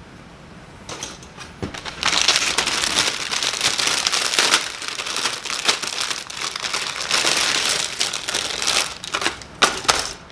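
Thin plastic bag of model-kit parts runners crinkling as it is handled and torn open, continuous from about two seconds in, with a few sharp clicks near the end.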